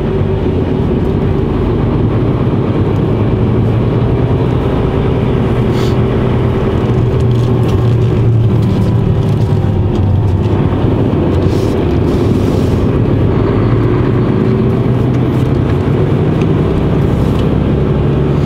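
Mercedes Actros truck's diesel engine running steadily while driving, a low drone with road noise.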